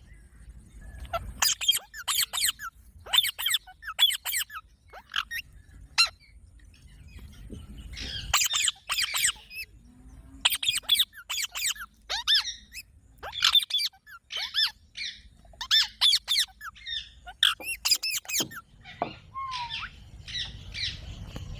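Pet rose-ringed parakeet calling: a long run of short, sharp, high-pitched screeches, several in quick succession, in clusters with brief pauses between them.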